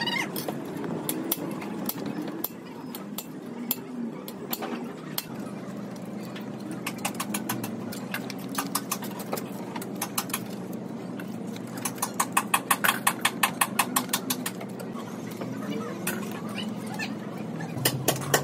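Hand sanding of dried body filler on a car's sheet-metal panels with sandpaper on a block: quick rubbing strokes, coming in runs of about five a second near the end. A steady low hum sits underneath.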